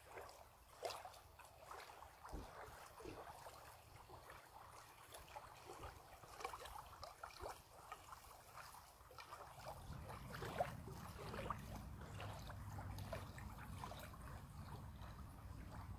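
Small wavelets lapping softly at a lake's sandy edge, a faint irregular splashing and trickling. A low rumble joins about ten seconds in.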